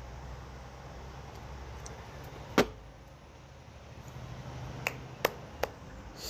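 Aluminium beer can handled after the last swig: one sharp knock about two and a half seconds in, then three lighter clicks close together near the end, over a steady low hum.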